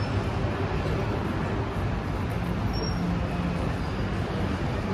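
Steady city street noise, mostly a low hum of passing road traffic.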